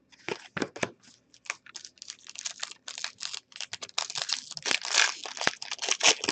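A foil wrapper of an Upper Deck hockey card pack being torn open and crinkled by hand, a rapid irregular crackling that grows louder in the second half.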